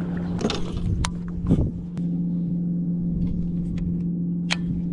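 Kayak's bow-mounted electric trolling motor running with a steady low hum, with a few sharp clicks and one thump in between.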